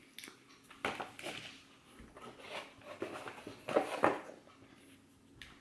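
Small cardboard charm boxes being handled and set down on a table: a few soft knocks and rustles, the loudest about four seconds in.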